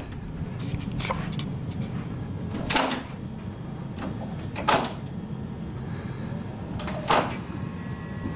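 A door rattling in its frame: four short rattles about two seconds apart, over a low steady hum.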